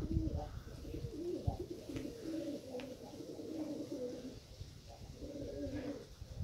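Domestic pigeons cooing, a steady run of low warbling coos one after another.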